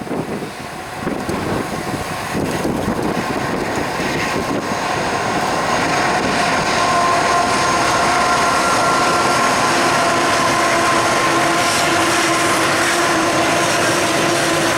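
Loaded coal train rolling past close by, a dense rail rumble growing louder over the first few seconds. From about five seconds in a steady whine with several tones rises over it.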